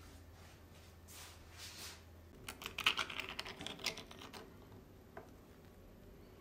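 Pull-tab lid of a can of tuna being opened: a quick run of sharp metallic clicks and crackles as the tab lifts and the lid peels back, starting a little over two seconds in. Before it, a soft rushing sound.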